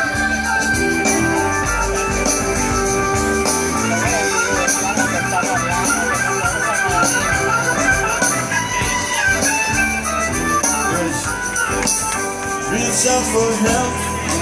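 Live band music from a large outdoor stage sound system, heard from within the crowd: an instrumental passage with a steady beat and no singing.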